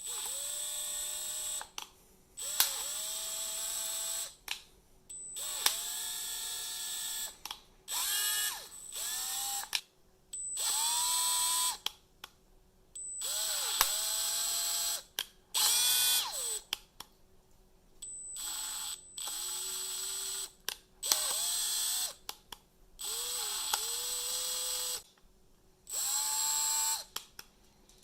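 Milwaukee M12 Gen3 hammer drill/driver (3404-20) run in about a dozen short, slow trigger pulls with the clutch set to 8: each run is a motor whine that rises in pitch and holds, and several open with a sharp loud click. The click is the clutch fault that the owner says does not sound good.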